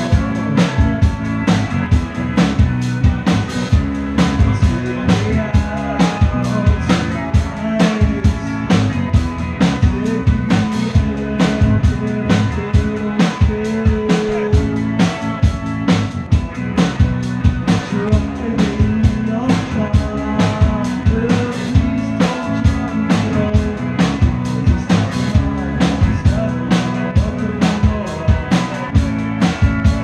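Three-piece rock band playing live: electric guitar, bass guitar and drum kit, with a steady drum beat.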